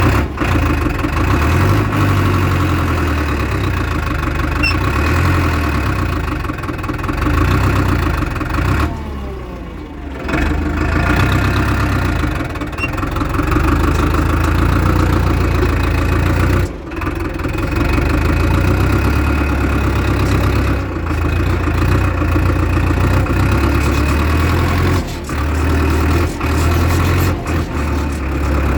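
Diesel engine of a JCB 3DX backhoe loader running while it works, rising and falling with load, breaking off abruptly a few times.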